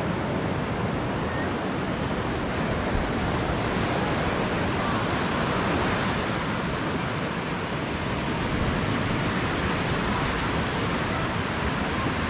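Steady, even rush of Baltic Sea surf, mixed with wind.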